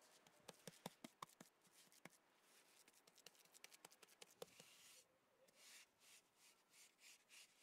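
Near silence with a few faint, soft scrapes and ticks, clustered in the first second and a half and again between about three and four and a half seconds in: hands smoothing wet mud plaster along the base of a brick cookstove.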